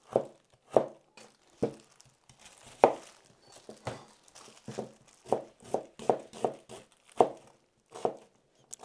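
A chef's knife slicing an onion and knocking on a wooden cutting board: a series of short knocks at uneven spacing, a little under two a second.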